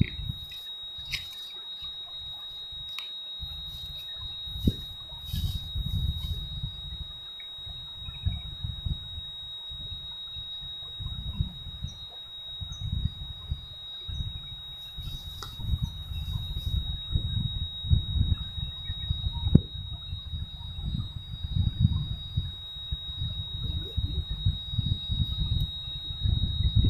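Wind buffeting the microphone in uneven gusts, under a steady high-pitched whine that never breaks.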